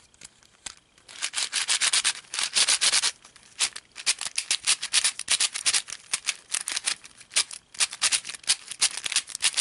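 New 3x3 puzzle cube being turned quickly by hand, starting about a second in: a fast run of gritty, scratchy layer turns that sounds like sandpaper. The cube is stiff and not yet broken in, and still locks up now and then.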